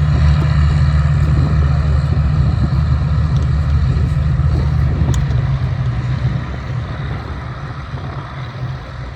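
Rolls-Royce Merlin piston engines of Hawker Hurricane fighters running on the ground as the aircraft taxi, with a steady, deep engine note that eases off somewhat about six seconds in.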